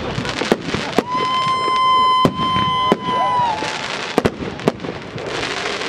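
Fireworks display: several sharp bangs of shells bursting, and a steady high whistle from a whistling firework that holds for about two and a half seconds before bending down and dying away. Near the end comes a dense crackling hiss.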